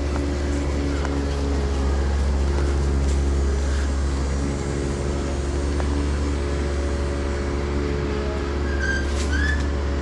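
A steady engine drone: a constant low rumble with several steady hum tones over it, unchanging throughout. A few short high chirps come near the end.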